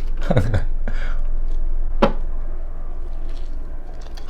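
A short voice sound under a second in, then a single sharp tap about two seconds in: a fork knocking against the plate while searching for the pizza slice.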